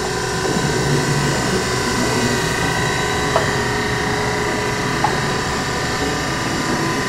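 Brown & Sharpe 618 Micromaster hydraulic surface grinder running: a steady hum from the spindle motor and the hydraulic pump, which has new bearings, as the table traverses under hydraulic feed. Two light clicks come a couple of seconds apart.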